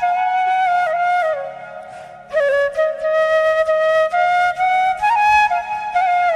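Music: a flute playing a melody note by note, breaking off briefly about two seconds in.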